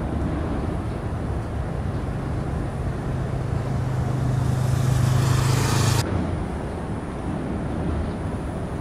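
Steady low engine drone with a rising hiss that swells for a few seconds and cuts off abruptly about six seconds in, leaving a low, even outdoor rumble.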